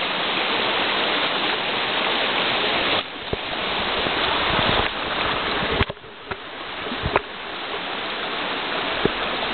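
Floodwater rushing down a hiking trail after torrential rain, a steady rush like a small river. The rush dips briefly about three and six seconds in, with a few knocks from handling the camera.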